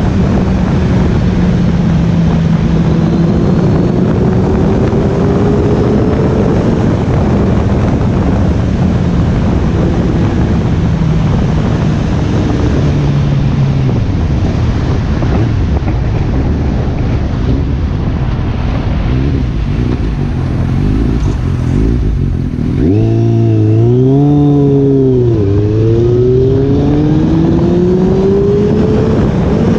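Kawasaki Z800's inline-four engine breathing through a Two Brothers aftermarket exhaust, heard from the rider's seat at speed under heavy wind rush. The engine note holds and dips for most of the stretch. About 23 seconds in, the revs swing sharply up and down, then climb steadily as the bike accelerates near the end.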